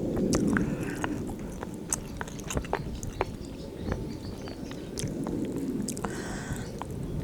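A person chewing and biting into a mouthful of bibim-guksu (spicy mixed noodles) at close range, with many short crisp clicks and crunches.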